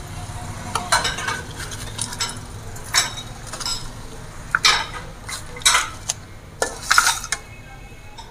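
Ice cubes dropped one by one into a steel pot of sharbat, giving a dozen or so irregular splashes and clinks against the metal.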